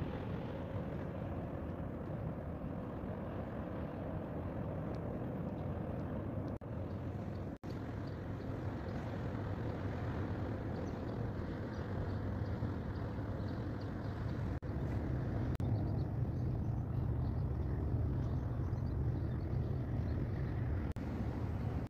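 Steady low engine rumble of ships passing through the strait, louder in the second half, broken by a few brief dropouts.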